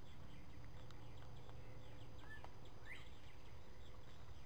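Woodland background: insects chirping in a quick repeating rhythm over a low steady rumble, with a short bird call and a rising whistle a little past the middle, and a few faint clicks.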